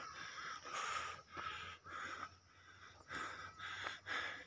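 A person breathing hard close to the microphone: a quick run of short, noisy breaths about two a second, out of breath.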